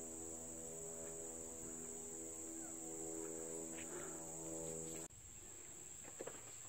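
Faint, steady high-pitched chorus of insects such as crickets, with a steady low hum beneath it. Both drop off sharply about five seconds in; the insect chorus carries on more weakly after that.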